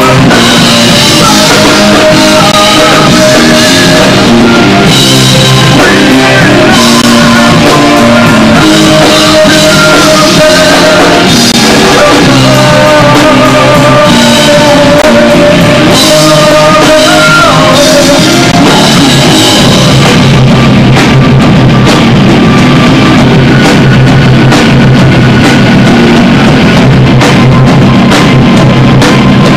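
Live rock band playing loud, with a drum kit, electric guitars and a lead singer. About two-thirds through, the sung melody stops and the band plays on.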